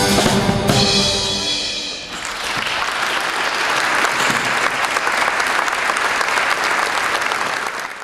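Music with drums ends about two seconds in, and an audience applauds for a stage band. The applause is cut off at the very end.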